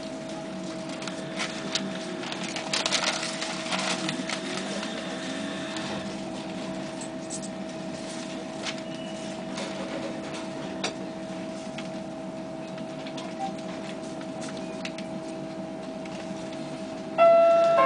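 Cabin noise of a Bogdan trolleybus under way: a steady, even-pitched electrical whine over a rumble, with scattered small rattles and knocks. Near the end a loud electronic chime of several notes starts, the lead-in to an onboard stop announcement.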